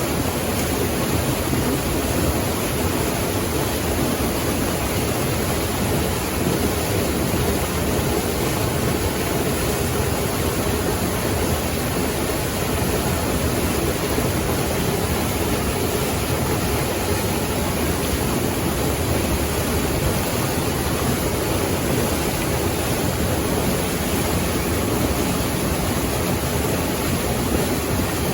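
Steady rushing of flowing water, an even unbroken sound with most of its weight in the low-middle range.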